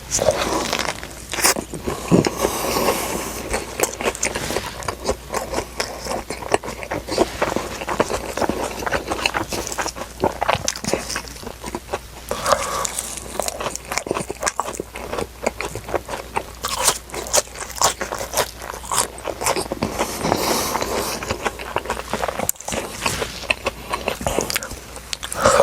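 A person eating close to the microphone: biting and chewing crunchy fast food, with many crisp, irregular crackles.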